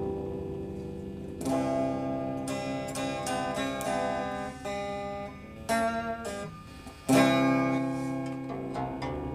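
Instrumental music on a plucked string instrument: notes and chords plucked and left to ring, with strong chords about a second and a half in and again near the end.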